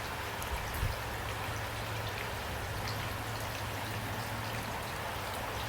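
Steady rain falling, an even hiss with scattered drops pattering on a surface, under a faint low hum.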